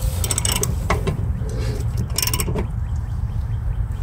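Ratchet wrench clicking in two short bursts, near the start and about two seconds in, as a 9/16 socket tightens the grade 8 bolt on a mower blade, over a steady low rumble.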